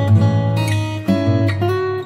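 Background music played on acoustic guitar, with notes changing every half second or so.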